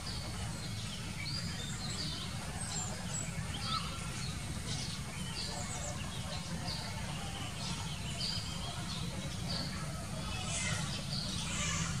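Birds chirping: many short, high calls scattered throughout, busier near the end, over a steady low background rumble.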